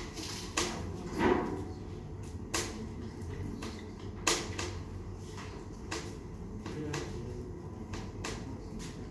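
Scattered sharp clicks and knocks at irregular intervals over a steady low room hum. The loudest comes a little after a second in.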